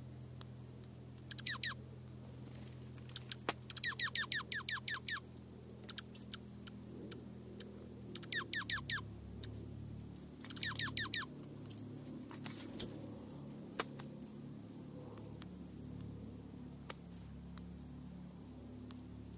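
Northern cardinal singing: four phrases of quick, steeply down-slurred whistled notes repeated several times a second. Underneath runs a steady low hum of distant road traffic, with a few sharp clicks between the phrases.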